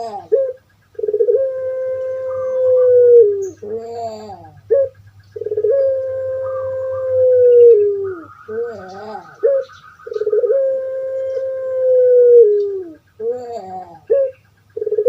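Puter pelung (Barbary dove) cooing. Three times, a short warbling burble is followed by a long, drawn-out coo held for about two and a half seconds that drops in pitch at its end.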